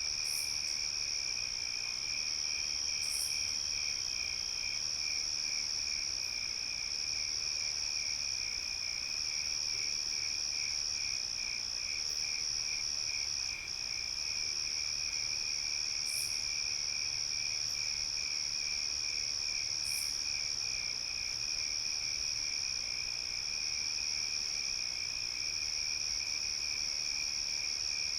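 Crickets chirping at night in a steady chorus: one continuous high trill with a second, lower trill pulsing rapidly beneath it. A few brief, very high chirps break in four times.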